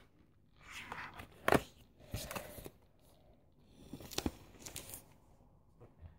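Paper rustling and crackling as the pages and pasted paper flaps of a spiral-bound scrapbook are handled and turned, with a sharp crackle about a second and a half in and another about four seconds in.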